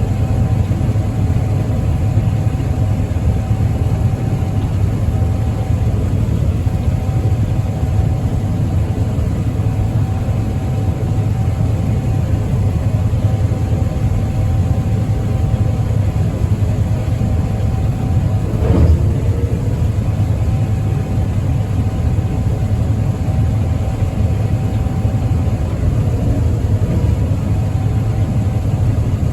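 Combine harvester running steadily: a deep engine rumble with a steady hum above it, and a brief pitch change about two-thirds of the way through.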